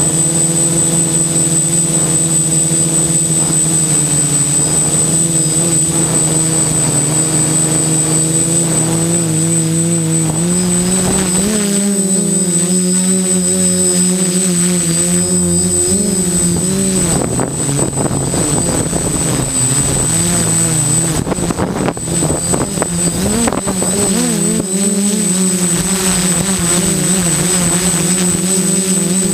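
DJI F450 quadcopter's electric motors and propellers heard from on board: a steady buzzing hum that rises in pitch and wavers about ten seconds in, with gusty rushing noise through the middle, settling back to a steady hum near the end. A thin high whine runs underneath.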